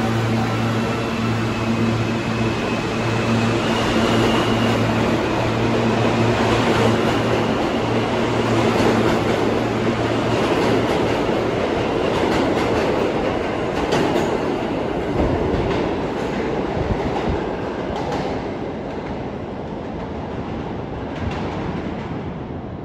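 New York City subway train running through the station: a steady hum in the first half under a loud rail rumble that swells, then fades toward the end, with a few sharp wheel clicks as it goes.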